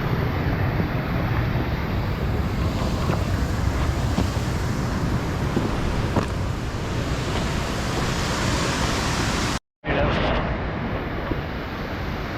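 Steady rushing of creek water, with a low rumble of wind on the microphone. The sound cuts out completely for an instant just before ten seconds in, then carries on.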